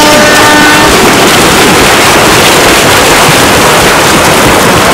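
Loud, continuous splashing and churning of water from a crowd of swimmers thrashing away together in a triathlon mass swim start. A steady horn tone cuts off a little under a second in.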